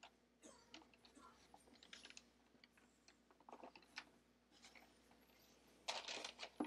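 Faint, scattered small clicks and taps with brief rustling, the loudest rustle about six seconds in: hands handling tools and paper at a miniature-painting desk.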